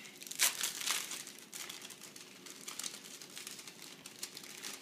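Clear plastic packaging bag crinkling and rustling as it is handled, in irregular crackles, loudest in the first half-second.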